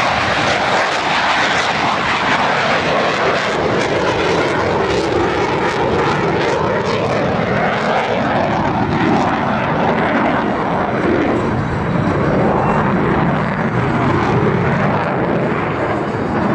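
Jet noise from military jet aircraft flying a high-g air-show manoeuvre: a loud, continuous rushing roar whose pitch sweeps slowly as the jets move past.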